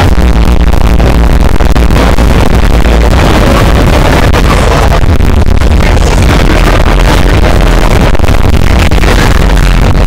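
Loud party music over a venue sound system, with a heavy, steady bass.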